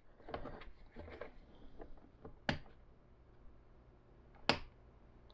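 Two sharp clicks about two seconds apart from the panel rocker switches of a DIY ammo-can battery power pack being toggled, the second click the louder, with faint handling of the plastic panel before them.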